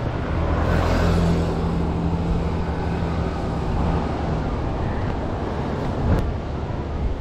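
Road traffic: a car driving past, loudest about a second in, over a steady low rumble. A single sharp click about six seconds in.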